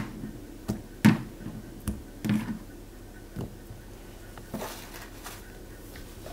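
A utensil knocking and tapping against a cup of thick green smoothie as it is stirred, in about half a dozen sharp, irregular taps, the loudest about a second in.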